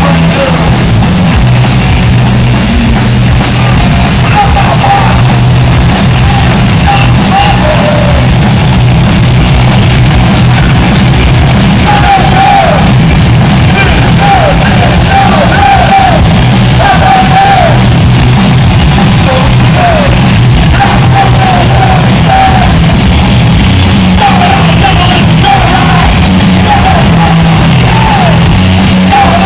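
Punk rock band playing loud and live: distorted electric guitars, bass guitar and drums, with yelled vocals.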